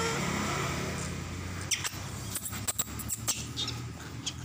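Baby macaque giving a quick run of short, high-pitched squeaks and clicks, starting a little under two seconds in, over a steady low hum.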